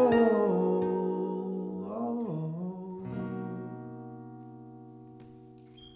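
Acoustic guitar and keyboard synth ending a song: a couple of sliding notes in the first two seconds or so, then the final chord rings on and slowly fades away.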